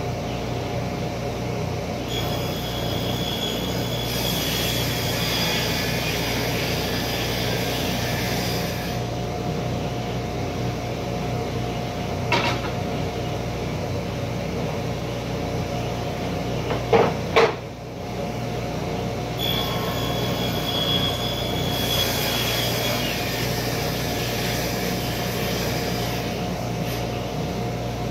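Workshop machinery running with a steady low hum. Twice a hissing, scraping noise with a thin whistle rises over it for several seconds, and a few sharp knocks come near the middle, one single and then two close together.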